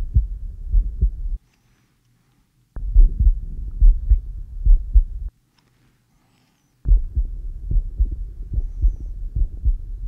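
Human heart sounds recorded with an Eko electronic stethoscope: a steady lub-dub heartbeat of low thuds. It is heard in three stretches split by two short silences, one for each listening point on the chest.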